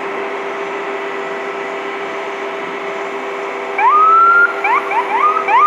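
Freight train's steady rolling noise as the last autorack cars pass. Near the end an emergency vehicle siren cuts in: one rising wail, a run of quick rising chirps, then a second wail that climbs and holds.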